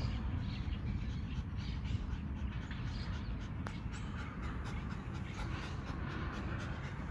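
Small dog panting, with scattered light clicks and rustles, over a steady low rumble.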